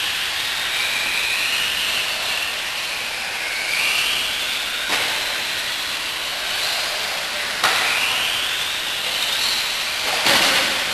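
Electric RC off-road buggies racing, their motors whining up in pitch again and again as they accelerate, over a steady hiss. There are a couple of sharp knocks midway.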